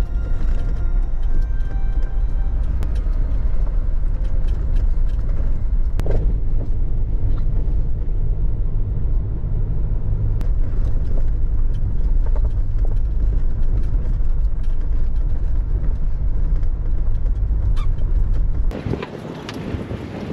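Jeep Wrangler driving: a steady low rumble of engine and tyres, with scattered clicks and knocks. Near the end it cuts off abruptly and gives way to wind blowing on the microphone.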